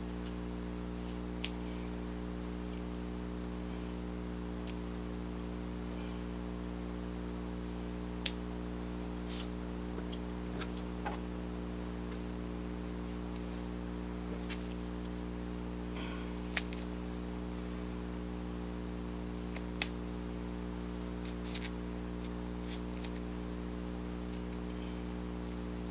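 Scissors snipping craft foam: scattered single sharp snips and clicks, a few seconds apart, over a steady low electrical hum.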